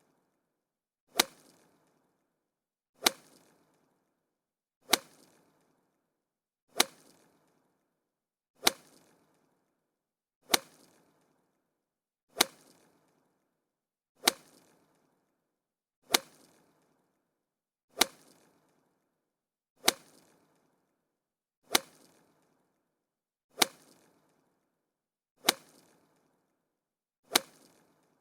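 Golf club striking a golf ball: a sharp crack with a short tail, repeated identically about every two seconds, fifteen times.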